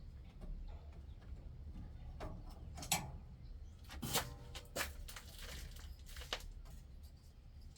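A few faint sharp clicks and knocks, about 3, 4, 5 and 6 seconds in, from handling the drain plug on a plastic oil pan, over a low steady hum.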